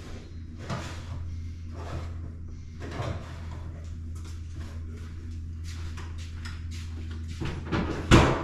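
Kitchen clatter: scattered knocks and clicks of drawers or cupboard doors being opened and shut, over a steady low hum, with one loud knock near the end.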